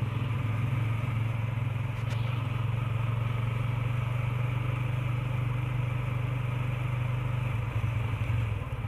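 Motorcycle engine running steadily at cruising speed, heard from the rider's seat along with wind and road noise; the engine note wavers near the end.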